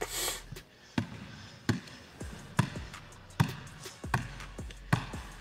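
A basketball being dribbled on a hardwood gym floor: a steady run of bounces a little under a second apart, each with a short echo in the large hall.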